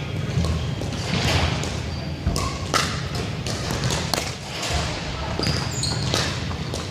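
Echoing gym sound of indoor pickleball: a dozen or so irregular sharp pops and knocks of plastic balls on paddles and the hardwood floor, a few short sneaker squeaks, and faint distant voices over a steady low hum.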